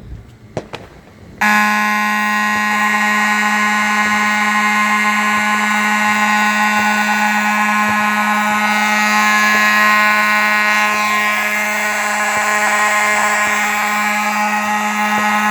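Simplex fire alarm horn sounding, starting abruptly about a second and a half in and then running as one loud, steady, unbroken tone with no pulsing.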